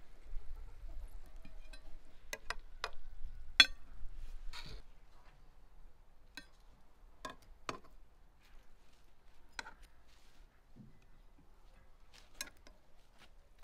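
Metal kitchen tongs clicking and tapping against a frying pan and a ceramic plate as fried liver slices and tomato halves are lifted and set down: about a dozen scattered sharp clicks, the loudest about three and a half seconds in. A low rumble runs under the first five seconds and then drops away.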